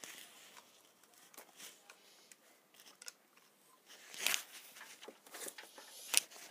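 Rustling and clicking handling noise from fingers on a handheld camera, with a louder scrape about four seconds in and a sharp click near the end.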